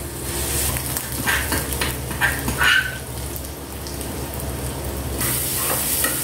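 Garlic paste and mustard seeds sizzling in hot ghee in a small frying pan, with a metal ladle scraping and clinking against the pan a few times early on. The sizzle grows brighter about five seconds in.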